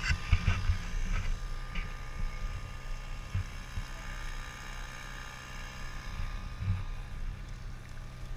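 Small outboard motor running steadily on an inflatable boat under way, with water rushing past and a low rumble with occasional thumps underneath.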